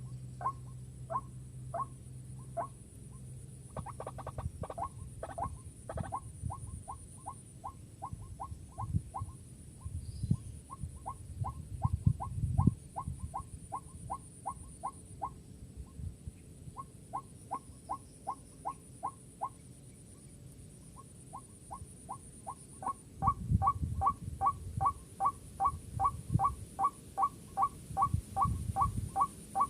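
White-breasted waterhen (ruak-ruak) calling: a long, regular run of short repeated notes, about three a second, louder in the last quarter. Low thumps come now and then, and a thin high hiss sounds throughout.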